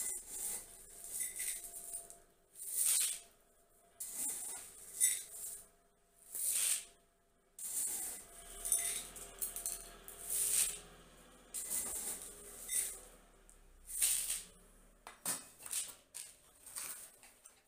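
Background music with shaker-like swishes every second or two over faint sustained tones.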